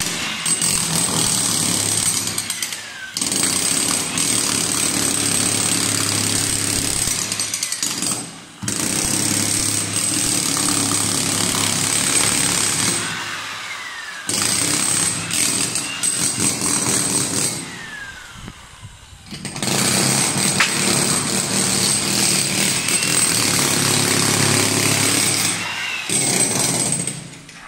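Electric demolition hammer with a chisel bit hammering and chipping porcelain floor tiles loose from their mortar bed. It runs in spells of several seconds with short pauses between them.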